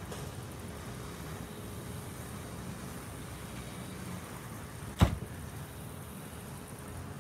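Steady low rumble of distant road traffic and outdoor ambience, with a single sharp knock about five seconds in.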